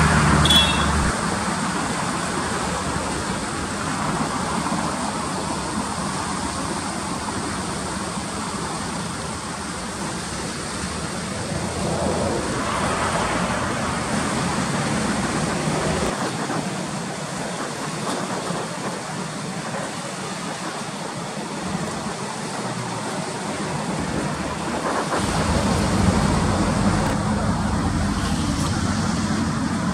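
Latorytsia river water rushing over shallow rapids: a steady rushing noise, its low rumble dropping away about halfway through and coming back strongly near the end.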